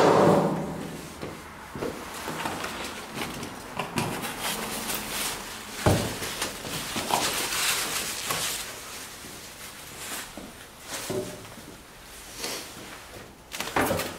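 Foam and plastic packaging wrap rustling and crinkling, with cardboard scuffing, as steel cabinet panels are lifted out of their box. A few short knocks of the sheet-metal panels come through, the clearest about six seconds in and another just before the end.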